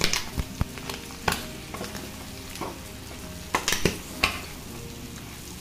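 Spatula stirring and scraping goat tripe (boti) frying in a metal pan, mixing in freshly added spice powder. A steady sizzle runs under it, with sharp scrapes against the pan every second or so, bunched together about four seconds in.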